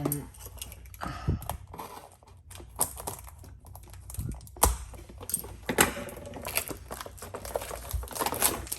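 Foil booster packs and their cardboard display box being handled: irregular light taps, clicks and crinkles as the loose packs are moved about, with a few louder rustles.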